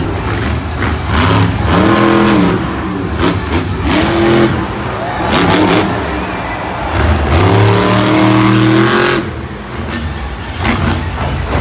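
Monster truck's supercharged V8 revving hard in repeated bursts, its pitch rising and falling. The longest rev, about seven seconds in, is held for two seconds and cuts off suddenly.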